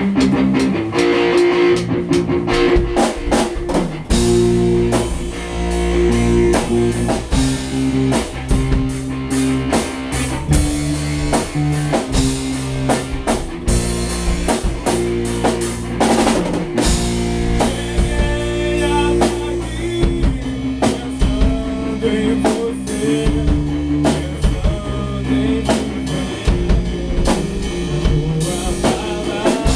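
Rock band playing an instrumental section: electric guitars and bass over a drum kit. The drums come in about two seconds in, after a guitar opening.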